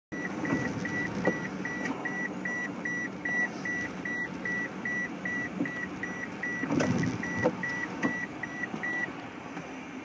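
A car's warning chime beeping at one pitch, about two and a half times a second, stopping about nine seconds in. Under it is a steady low rumble inside the car, with a few sharp knocks.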